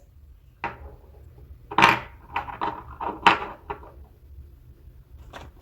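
Small plastic toy animal figures being handled and set down on a hard surface: a string of short knocks and rustles, the loudest about two seconds in.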